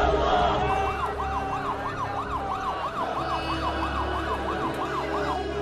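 Ambulance siren on a fast yelp, its pitch sweeping up and down about three times a second, starting about a second in and stopping just before the end.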